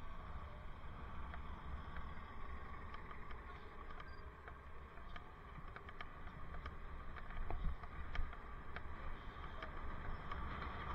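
Bicycle riding over city pavement, heard from a helmet-mounted camera: steady low rumble of tyres and wind on the microphone, with scattered small clicks and rattles and a few louder bumps near the end.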